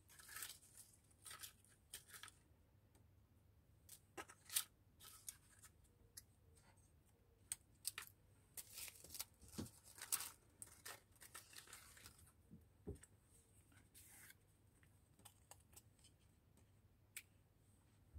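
Paper and card cutouts being rummaged and sorted by hand in a plastic tray: faint, intermittent rustling and light ticks, busiest in the middle of the stretch.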